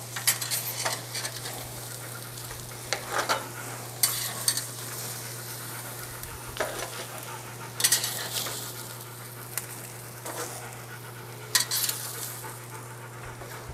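Steaks sizzling on hot GrillGrates in a Big Green Egg kamado grill, with several sharp clinks of metal tongs against the grates as the steaks are lifted off. A steady low hum runs underneath.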